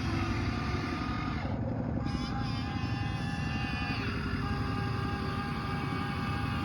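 Huina 1593 radio-controlled model excavator running, its small electric motors whining over a steady low drone; the whine changes pitch about two seconds in and again about four seconds in, as different functions are worked.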